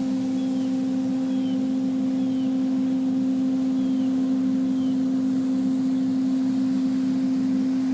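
Steady low hum of a running engine, holding one pitch throughout, with faint short high chirps about once a second.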